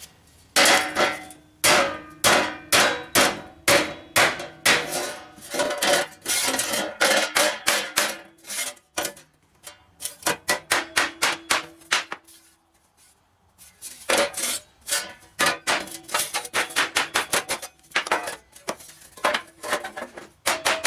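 Hammer blows on the sheet-metal exhaust heat shield, straightening it: quick runs of sharp strikes, several a second, each with a brief metallic ring. The blows stop for about a second and a half just past halfway, then resume.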